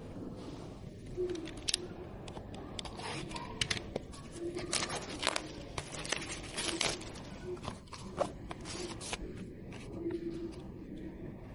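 Irregular small clicks, taps and scrapes of computer parts being handled, over a steady low hum.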